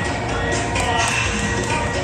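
Music playing over the noise of a crowd.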